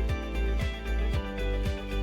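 Background music with a steady beat of about two bass-drum hits a second under sustained chords.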